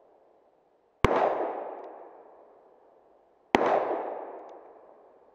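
Two single shots from a Ruger Single Six revolver firing .22 Magnum, about two and a half seconds apart, each followed by an echo that dies away over about two seconds. A faint ping follows each shot, a bullet striking a steel plate downrange.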